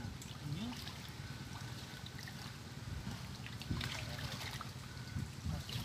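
Shallow muddy water sloshing and trickling around hands groping along the bottom for fish.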